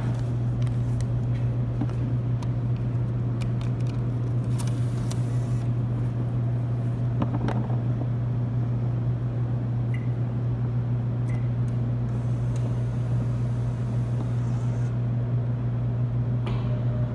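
Vending machine humming steadily, with a few light clicks in the first few seconds and two brief faint beeps about ten and eleven seconds in.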